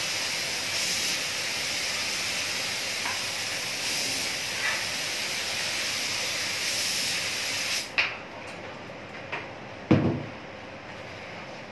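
Air-fed paint spray gun hissing steadily as paint is sprayed, then cut off suddenly about eight seconds in. A sharp click follows, then a small knock and a loud thump about ten seconds in.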